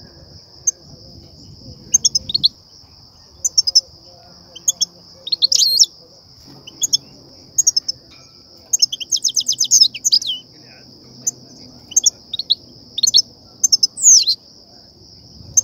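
European goldfinches giving their sharp twittering 'pit-pit' calls: short chirps every second or so, a quick run of about ten notes about nine seconds in, and a loud falling note near the end. These are the excitement calls that trappers play to stir goldfinches and draw them to nets. A steady high-pitched hiss runs underneath.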